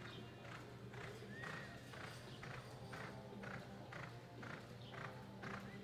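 Horse's hoofbeats in a steady loping rhythm, about two strikes a second, over a steady low hum, with a few short high squeaks.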